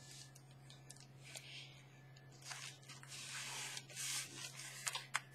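Paper rustling and rubbing as hands slide a paper pocket onto a journal page and smooth it flat, in soft stretches of hiss, with a few light clicks near the end.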